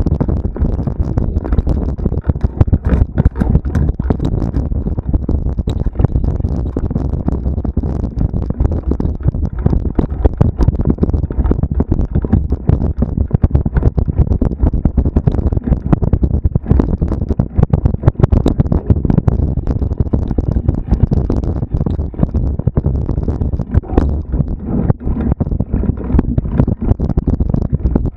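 Steady low rumble with dense rattling and knocks, plus wind buffeting the microphone: the sound of a camera carried at speed over a rough cross-country trail.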